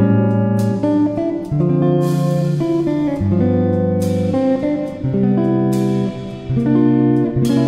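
Instrumental background music: sustained chords that change about once a second, with regular sharp beats.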